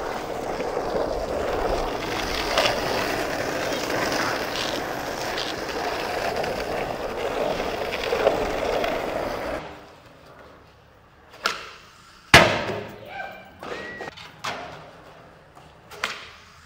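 Skateboard wheels rolling fast over pavement, a steady rough roar that cuts off abruptly about ten seconds in. After that come several sharp knocks spaced a second or two apart, the loudest about twelve seconds in.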